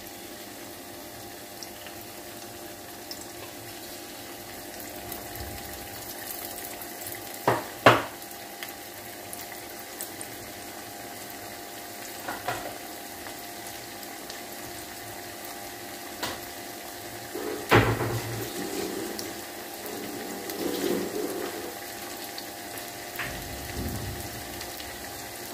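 Chicken pieces deep-frying in hot sunflower oil in a metal kadai: a steady sizzle, with a few sharp clicks, the loudest about eight and eighteen seconds in.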